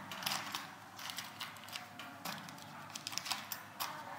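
Small metal screws clicking and rattling as a hand picks through them in a plastic parts tray: irregular light ticks throughout.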